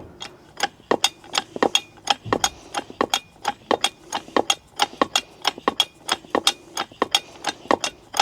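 Quick, uneven metallic clicking, about three or four clicks a second, from a hydraulic pull-back ram kit as its hand pump is worked to put pulling tension on a pushed-in A-pillar.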